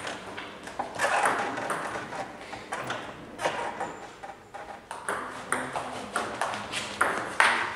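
Table tennis ball struck by bats and bouncing on the table during a rally: a quick, irregular series of sharp ticks.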